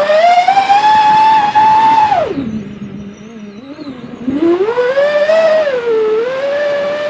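FPV quadcopter's electric motors and propellers whining loudly, the pitch following the throttle: it climbs and holds high, drops sharply about two seconds in, then climbs again about four seconds in and wavers.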